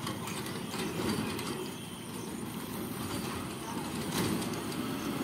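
Road traffic din, with a minivan's engine coming close as it drives over the crossing and up the road.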